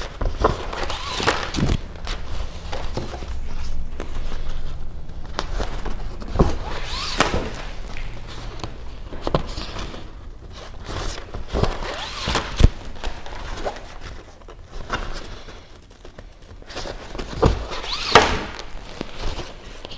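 Hand-sewing a kayak's fabric skin over its frame: thread drawn through the fabric with short swishes, the fabric rustling, and scattered sharp knocks as the frame and tools are handled, the loudest about twelve and a half seconds in.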